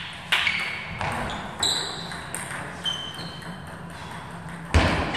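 Table tennis ball clicking off the bats and table as a rally ends, followed by a few sparse, high pinging bounces of the ball. A heavy thud comes near the end.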